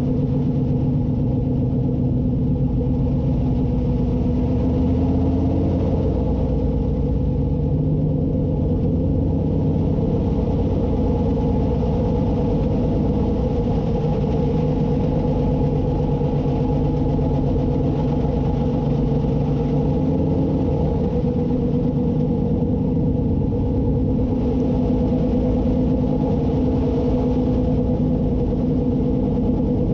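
358 small-block V8 of a dirt modified running at low, steady revs as the car rolls at about 30 mph, heard from inside the cockpit. The pitch holds nearly level throughout, with no hard acceleration.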